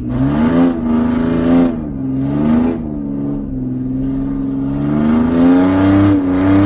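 Ford Ranger's 3.0 L Vulcan V6 being revved hard. Its pitch rises and falls several times in the first few seconds, holds fairly steady, then climbs again near the end.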